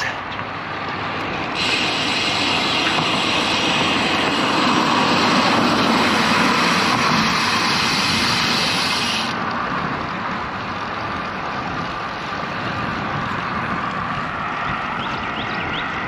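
Wind rushing over an action camera's microphone while riding a road bike along a road, with a steady mix of wind and road noise. A sharper hiss rides on top through the first half and cuts off suddenly.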